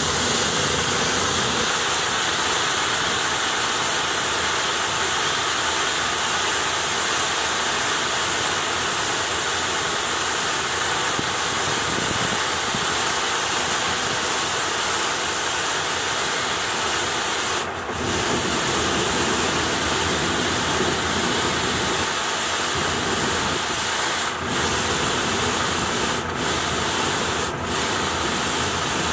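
Road sweeper at work: the rotating brush scrubs the pavement in a steady, loud swish over the running engine, with a few very brief dips in the second half.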